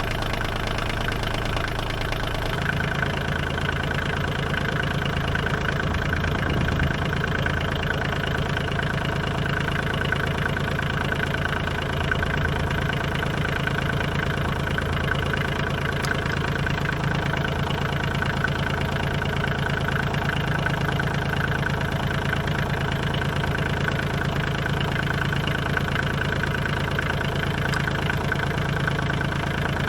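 Bobcat CT122 compact tractor's three-cylinder diesel engine idling steadily with a light diesel knock; its note shifts slightly about two and a half seconds in.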